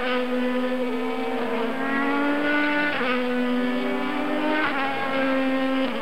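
IndyCar twin-turbocharged V6 engines accelerating through the gears at racing revs, the pitch climbing and then dropping sharply at each upshift, several times over.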